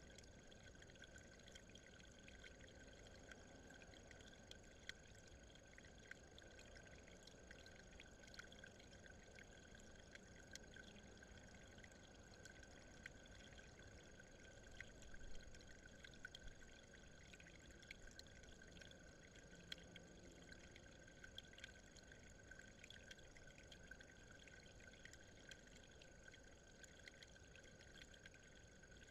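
Near silence: a faint, steady trickle of water running over stone, with scattered small ticks.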